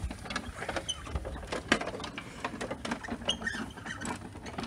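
Irregular light clicks, knocks and rattles from handling the overheated lawnmower as a restart is readied; the engine is not running.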